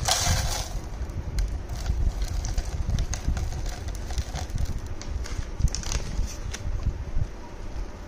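Rolled oats poured from a packet into a plastic jar: a rustle of the packet at the start, then a scattered ticking and rustling of flakes landing, over a steady low rumble.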